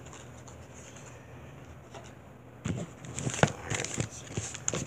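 Packaging being handled and unwrapped as the next pin is taken out: a run of irregular crinkling rustles and sharp clicks starting a little under three seconds in, after a quiet stretch with a low hum.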